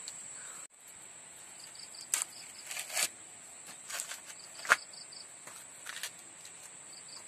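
Steady high insect chirping, with a few short, sharp rustles and snaps as green maize husks are torn off the cobs by hand; the loudest snap comes about two-thirds of the way through.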